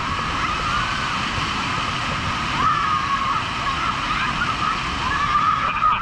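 Heavy, muddy floodwater from a swollen waterfall pouring and splashing down onto people in a steady, loud rush, with high wavering voices yelling over it.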